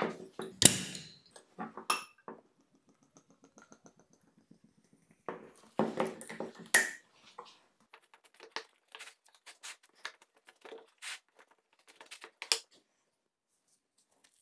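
A swing-top beer bottle is opened with a sharp click and the beer is poured into a glass. Then a serrated knife saws through a baked pizza crust on a wooden board, a long run of short, crisp crackles.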